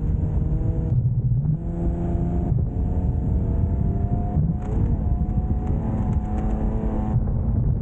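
Nissan Pathfinder R50's engine running hard under load, its pitch climbing in stretches and dropping back several times, over a heavy low rumble.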